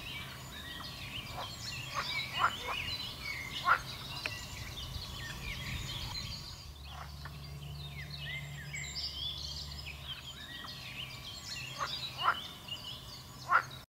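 Pond chorus of many short chirping and trilling calls, with sharp short calls standing out every second or two, over a low steady hum; the calls fit water frogs (pool and edible frogs) calling, mixed with birdsong. The sound cuts off suddenly near the end.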